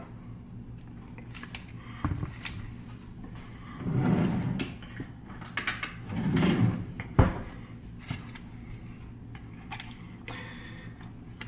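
Handling noise of containers on a kitchen counter: scattered knocks and clicks as plastic tubs and cups are set down and picked up, with two longer, softer stretches of handling partway through and one sharp click about seven seconds in.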